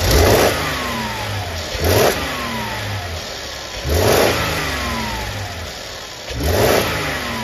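Mercedes GL450's twin-turbo engine revved in four short blips about two seconds apart, each rising sharply and falling back toward idle. It is revved to bring out the rattle of a wastegate flapper loose on its worn pivot in the turbo housing, which keeps the flapper from shutting fully and causes low boost.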